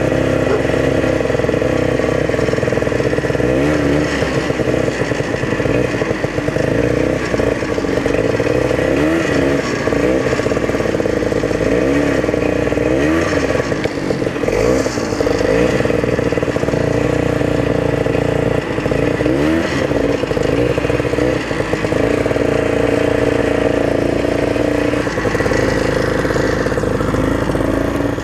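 Old Ski-Doo snowmobile's two-stroke engine running under way, its revs briefly rising and falling every second or two.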